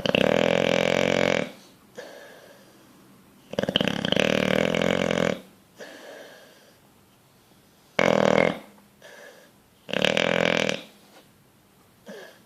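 Bulldog snoring in deep sleep: four loud snores a few seconds apart, each lasting about a second, with soft breaths between them.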